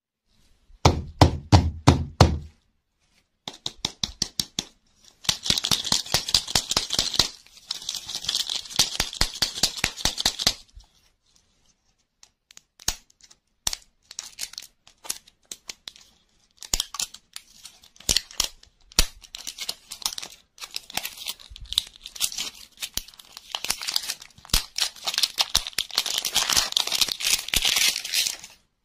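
Thin foil wrapper crinkling and tearing as it is peeled by hand off a plastic toy-capsule lollipop, in long crackling stretches with scattered single crackles between. About a second in, a quick run of sharp taps with low thuds.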